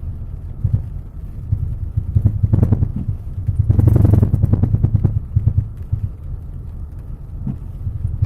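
Citroën C5 (X7) driving over small bumps, with a low road rumble and irregular short knocks from the right-hand suspension, loudest about four seconds in. The knocking is the fault the owner is showing.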